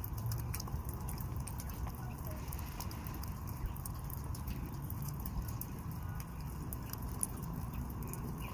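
Water pattering and dripping down a metal rain chain and off its decorative metal butterflies, with many small irregular ticks over a steady low rumble.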